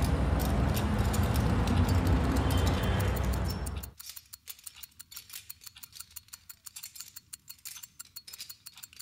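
Steady street noise that cuts off abruptly about four seconds in. It gives way to the quiet ticking of several wristwatches: fast, overlapping ticks, several a second.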